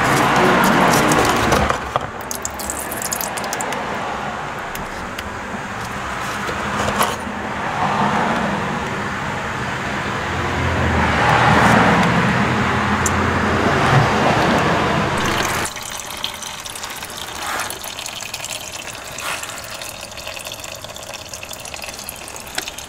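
Used engine oil pouring and splashing into a drain pan during an oil change, with the stream swelling and easing. About sixteen seconds in, the pouring stops abruptly, leaving light clicks.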